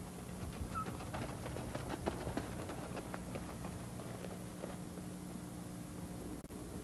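Running footsteps on pavement: irregular quick slaps and clicks, over a steady low hum.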